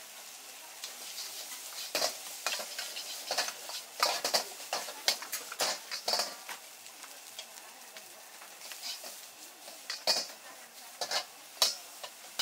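Metal ladle scraping and clacking against a wok in quick, irregular strokes as fried rice and noodles are stir-fried, over a steady sizzle of food frying on high heat.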